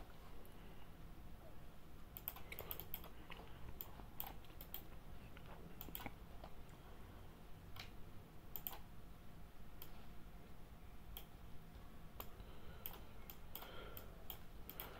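Faint, irregular clicks and taps over a low steady hum.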